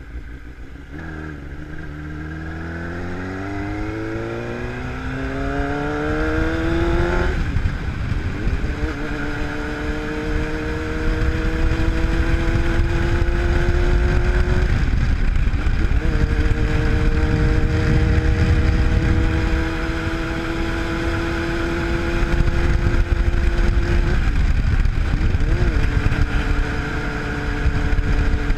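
Sport motorcycle engine accelerating hard, its revs climbing steeply and then dropping suddenly about seven seconds in as it shifts up. It then pulls steadily in higher gears, with brief dips in revs about halfway and again near the end, over a low rush of wind.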